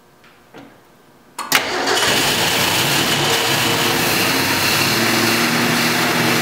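A 1966 Ford Mustang's straight-six engine starting: it catches almost at once about a second and a half in and settles into steady running. This is a start after long storage, with fuel poured by hand into the carburetor.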